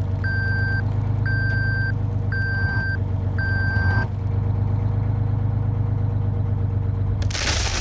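A large vehicle's engine running steadily while a reversing alarm beeps four times, then a burst of hiss near the end.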